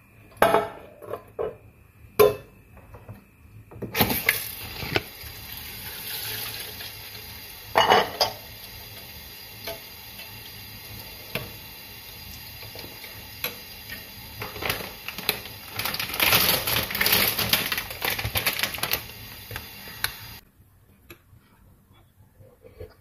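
Metal spoon clinking and scraping against a glass bowl as hot soup is stirred and eaten. A steady hiss comes in about four seconds in and cuts off suddenly near the end.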